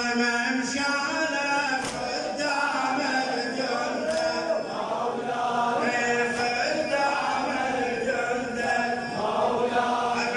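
A congregation of men chanting a Shia Muharram lament (latmiya) together. A sharp, collective strike comes about every two seconds, in time with the chant: the mourners beating their chests.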